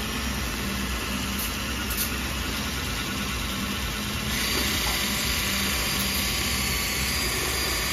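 A small motor running with a steady hum under a hiss; the hiss gets brighter and a little louder about four seconds in.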